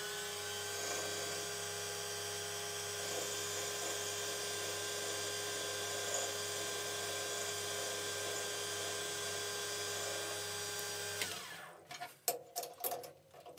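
Small metal lathe running with a steady motor whine, spinning a threaded rod in its three-jaw chuck. About 11 seconds in the motor is switched off and winds down, followed by a few metallic clicks and knocks as the chuck is handled.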